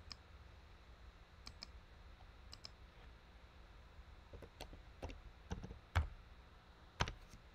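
Quiet computer mouse and keyboard clicks: about a dozen scattered taps as a short command is typed, with two louder clicks near the end.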